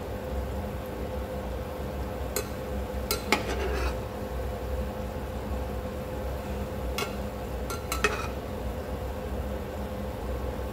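Hollow sweet potato balls deep-frying in hot oil with a steady sizzle, stirred by a metal ladle that clicks and scrapes against the pan about six times.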